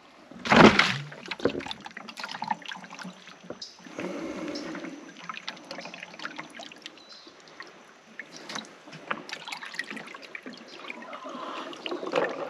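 Creek water splashing and sloshing as a plastic bucket holding a small lift pump is set into a pool and pushed under. A loud splash comes about half a second in, followed by irregular sloshing as the bucket fills.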